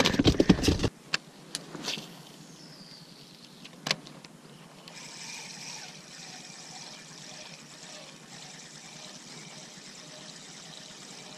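Knocks and rattles of fishing gear handled in an inflatable boat during the first second, a few single clicks after, then from about five seconds in a faint, steady trickle of water.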